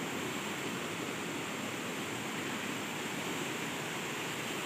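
A fast, rocky river rushing over stones, heard as a steady, even hiss of running water.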